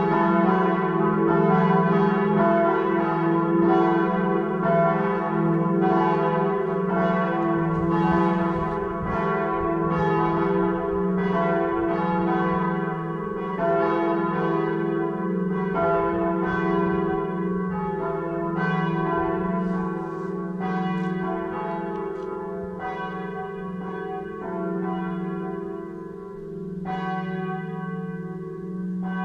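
Several church bells ringing together, with strikes following each other unevenly and overlapping over a steady lingering hum. The ringing grows somewhat quieter toward the end.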